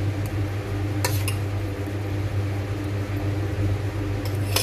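Steel spoon clinking against a steel bowl of dahi baingan, twice close together about a second in and once more near the end, over a steady low hum.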